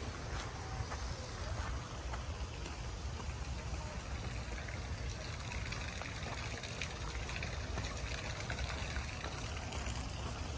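Wind rumbling on the microphone, with an unsteady low buffeting under an even hiss and a few faint ticks.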